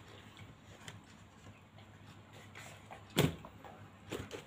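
A Nike Zoom Vaporfly Next% 2 running shoe handled in its cardboard shoebox: one sharp thump about three seconds in as the shoe is set down in the box, then a few lighter knocks near the end.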